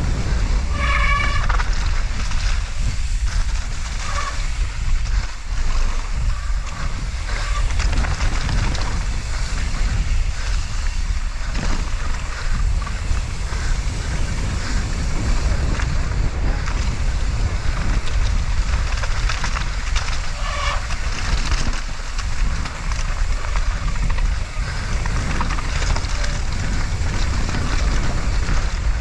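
Wind buffeting a GoPro's microphone as a mountain bike descends a wet, rough trail, with the bike rattling continuously over the ground. A short high-pitched squeal sounds about a second in and again about twenty seconds in.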